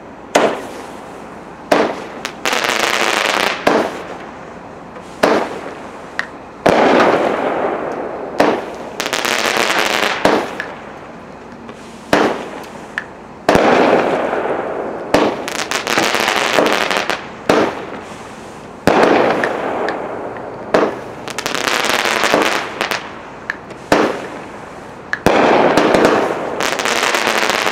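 Phantom Fireworks Platinum Pyro-Fusion 19-shot firework cake going off, about a shot every second and a half. Each shot is a sharp bang followed by a second or two of crackling hiss that fades before the next.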